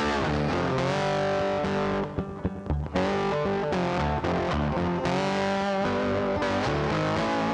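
Background music led by a distorted electric guitar playing chords, with a short break about two seconds in.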